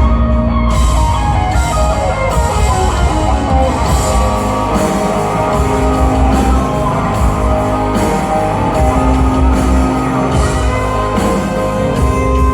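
Live rock band playing loudly: electric guitars, bass and drums, with a long downward pitch slide over the first few seconds.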